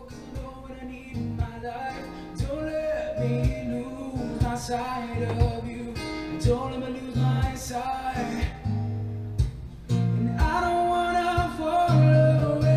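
A recorded song with singing and guitar over a beat, played back through a TV, growing louder in the last few seconds.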